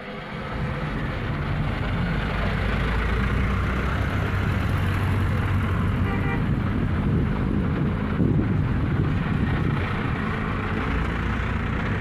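A convoy of large buses passing, their engines rumbling with road noise; the sound builds over the first couple of seconds and then stays steady.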